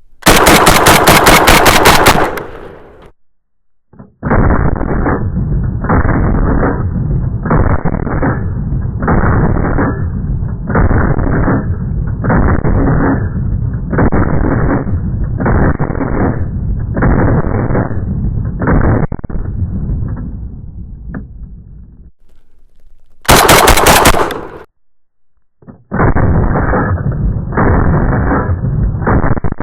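Panzer Arms BP12 semi-automatic 12-gauge bullpup shotgun firing: a sharp, rapid string of shots at the start and another about 23 seconds in. Between and after them come long runs of duller, evenly spaced booms, about one a second.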